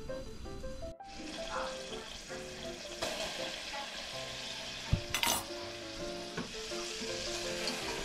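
Butter sizzling in a stainless steel saucepan on a gas burner as flour is whisked into it to cook a roux, with a couple of sharp knocks about five seconds in. Background music with plucked stepped notes plays over it.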